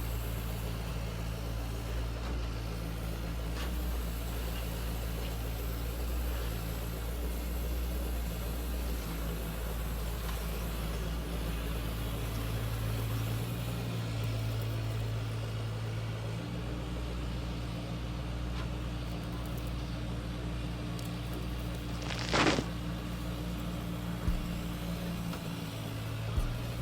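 A steady low machine hum that shifts in strength a few times, with a short sharp noise about twenty-two seconds in.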